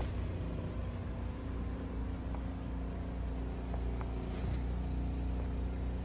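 An engine running steadily somewhere near, a low, even rumble with a steady hum.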